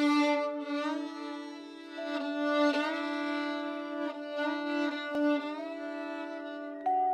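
Violin playing slow, sustained bowed notes, two or more pitches held together, with the upper note changing every second or two and a louder higher note coming in near the end.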